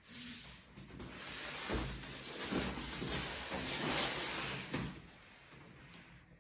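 Parts and cardboard packaging of an IKEA Pax flat-pack wardrobe being handled: scraping and rustling for a few seconds with a couple of knocks, then it dies down to low room noise.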